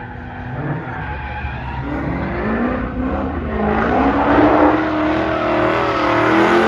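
SRT performance car drifting: tyres squealing in a wavering pitch over the engine running hard, growing louder through the second half.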